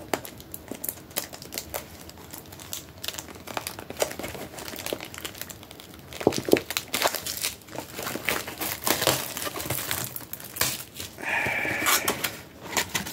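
Plastic shrink-wrap being torn and crinkled off a Pokémon TCG booster bundle box, a dense run of irregular crackles, with a brief squeak near the end.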